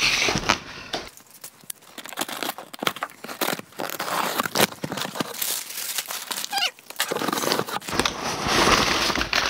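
Unboxing a cardboard box: the box scrapes across the table, packing tape is cut and ripped with scratchy clicks and tearing, then the flaps are opened and the packing paper inside rustles and crumples near the end.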